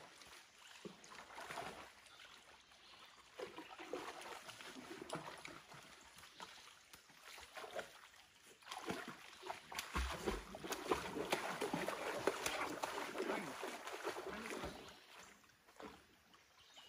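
Water splashing and sloshing as a swimmer paddles across a creek pool, busiest about two-thirds of the way through.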